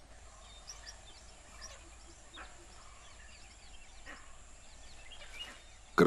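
Faint forest ambience with scattered short bird chirps and calls over a soft background hiss.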